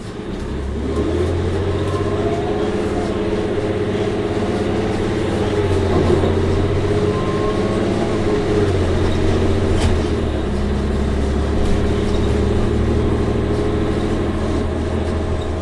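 Orion VII NG CNG transit bus pulling away and accelerating: its Cummins ISL-G natural-gas engine and Allison B400R automatic transmission run under load with a steady low drone and a whine that rises and dips a few times as it goes through the gears.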